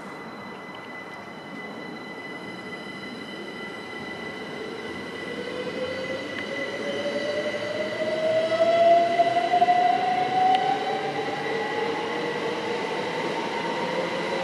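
Two coupled Class 387 Electrostar electric multiple units running past with wheel and rail noise, getting louder and loudest about eight to ten seconds in. A motor whine rises slowly in pitch over the second half, as the train picks up speed.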